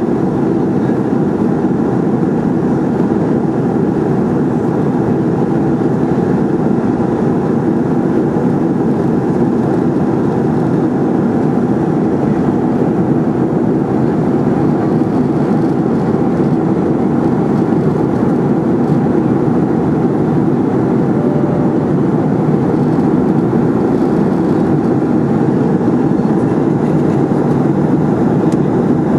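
Steady cabin noise of an airliner in flight: an even rush of air and engine noise, strongest in the low-middle range, that does not change.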